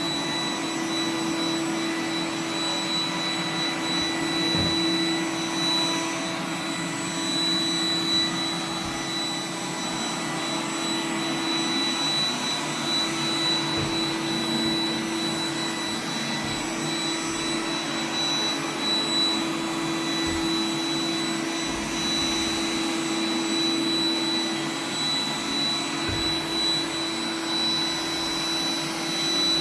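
Roomba 980 robot vacuum running steadily: a constant motor hum with a thin, steady high whine over it.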